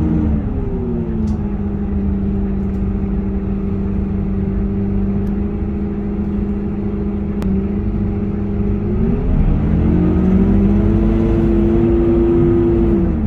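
Scania K230UB city bus's diesel engine heard from inside the passenger cabin while the bus is driving. The engine note drops about a second in and holds steady. It rises and gets louder around nine seconds in, then falls again just before the end, over a steady low road rumble.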